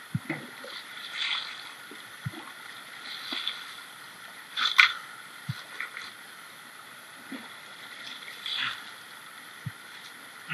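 Shovel working wet river gravel and stones: irregular scrapes and low knocks, the loudest about halfway through, over the steady rush of the river.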